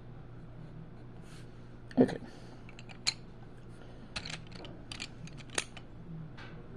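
A thump about two seconds in, then a handful of short sharp clicks of wooden colored pencils knocking together as one is put back and another taken from a row of pencils. A steady low hum runs underneath.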